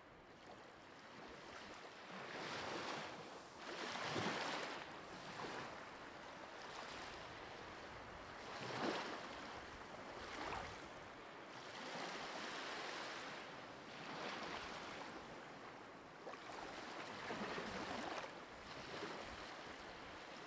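Faint sea waves washing in and out, swelling and receding every few seconds.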